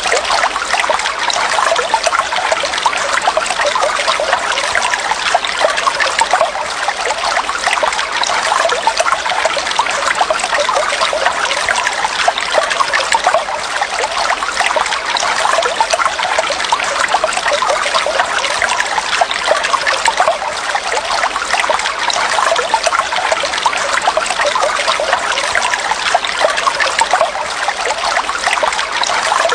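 Water trickling and babbling steadily, a light, splashy flow without deep rumble.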